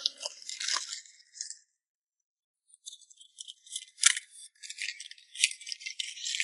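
Small blind boxes and their packaging being handled and opened: light rattling and crinkling, stopping for a moment and then going on, with a sharper click about four seconds in.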